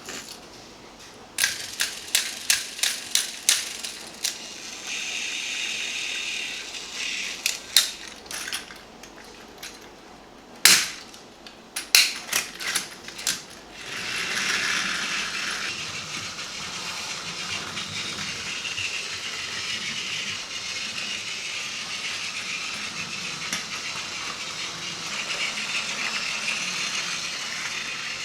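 Plastic toy parts clicking and clacking in quick runs of sharp snaps as pieces are handled and fitted. About halfway through, the steady whir of a battery-powered Plarail toy train's small motor takes over.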